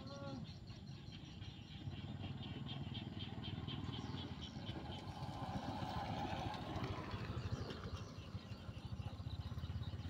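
Frogs calling in a rice-paddy chorus: short notes repeated rapidly, about four or five a second, over a steady low rumble.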